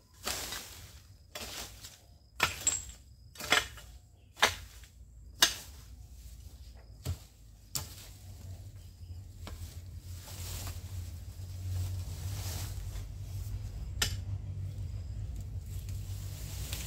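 Metal hoe blade chopping into weedy ground, a sharp strike about once a second, then only now and then. A steady low rumble rises in the second half.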